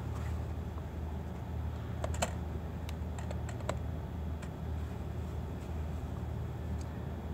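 A steady low hum with a scatter of light, irregular clicks and taps, most of them around the middle.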